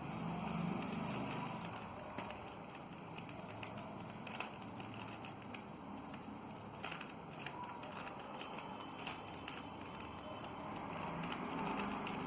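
Rubik's cube being turned by hand: faint, irregular clicks and rattles of the plastic layers as they are twisted.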